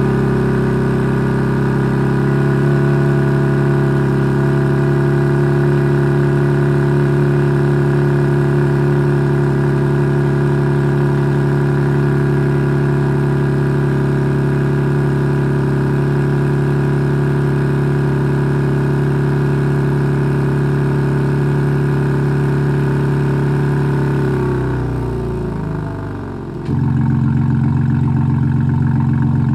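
BMW G80 M3's S58 twin-turbo inline-six idling steadily. Near the end the idle speed sinks lower, and a couple of seconds later the exhaust note steps up louder as the Dahler controller opens the exhaust valves.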